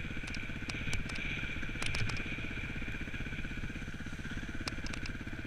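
Dirt bike engine running at low, steady revs as the bike rolls down a forest trail, with a few sharp knocks about one and two seconds in and again near the end.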